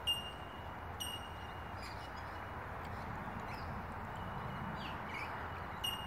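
Birds calling around a feeding flock of rainbow lorikeets: a steady background of chatter, with sharp, high ringing pings twice near the start and once near the end, and a short falling whistle near the end.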